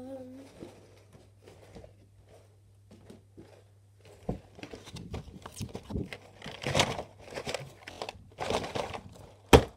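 Small plastic Lego pieces and crinkly packaging being handled and rummaged through: faint scattered clicks at first, then from about four seconds in a busier run of rustling and rattling, with two sharp clacks near the end.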